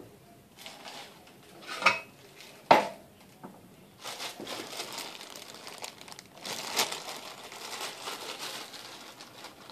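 Two sharp knocks, the second louder, then a clear plastic bag crinkling for several seconds as it is handled.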